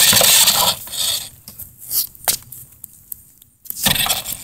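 Scraping and rustling handling noise on a phone taped to an RC car's body, in uneven bursts with a few sharp clicks, as the car is moved about.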